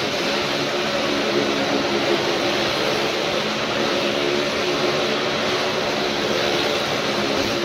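Motorcycle and car engines running hard as they circle the vertical wooden wall of a well-of-death drum, a loud, steady engine drone.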